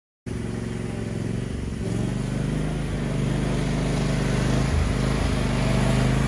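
John Deere LT180 lawn tractor engine running steadily under way, cutting in abruptly just after the start and growing gradually louder.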